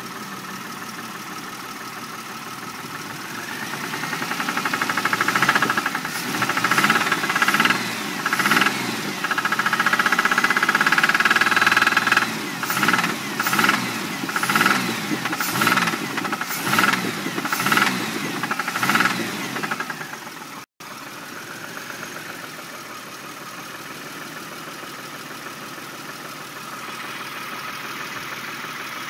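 1999 Pontiac Grand Prix V6 with rod knock, idling and then revved. The revs are held up for a few seconds, then blipped about eight times at roughly one a second, and the engine drops back to idle about two-thirds of the way through. The knock is the sign of a worn connecting-rod bearing in a tired engine.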